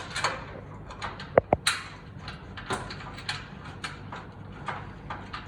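Metal clicks and knocks of a steel bolt being handled and fitted against the steel frame of a gym machine, with two sharp ringing metallic clinks about a second and a half in.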